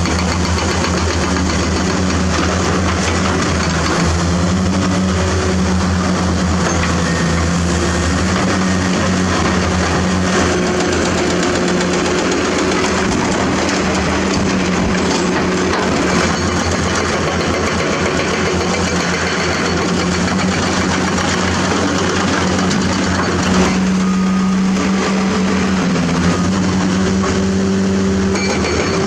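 Caterpillar 336D excavator's diesel engine running steadily under load, with a few faint knocks as dirt and rock are dumped into a dump truck's steel bed.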